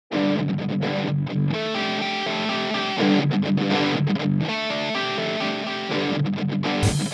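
Distorted crunch electric guitar chords playing back from a rock mix, starting right after a short stop. Near the end the sound changes and sharp drum-like hits come in.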